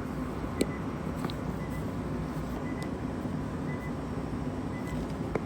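Steady low background noise with a few faint clicks.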